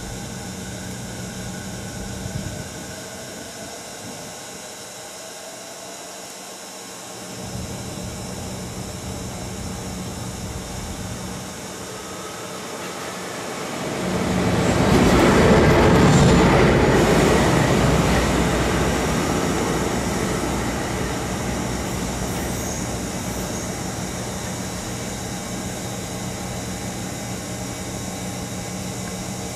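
DE11 diesel-hydraulic shunting locomotive passing close by with its engine running. The sound swells to a peak about halfway through, then slowly fades as it moves away.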